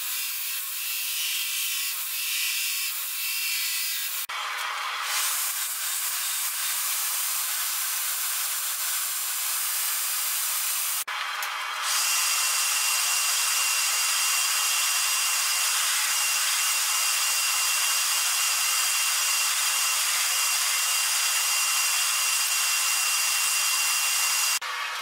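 Belt grinder running, its abrasive belt rough-grinding a stabilized poplar (Raffir) knife handle with a continuous hissing sand. The sound shifts abruptly about 4 and 11 seconds in. From about 12 seconds it is louder and steadier, with a steady high whine in it.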